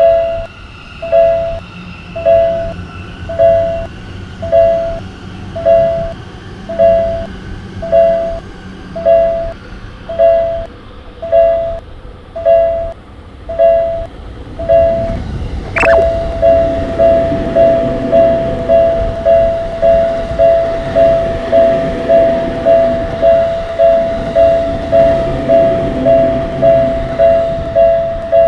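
Japanese level-crossing warning bell ringing in a steady rhythm, about one strike a second. About halfway through a sudden sharp sound cuts in and the bell carries on at about twice the rate, over the low rumble of a train.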